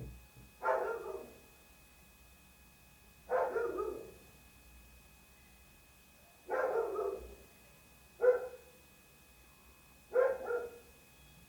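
A dog barking over and over: five short barks, some doubled, spaced about two to three seconds apart.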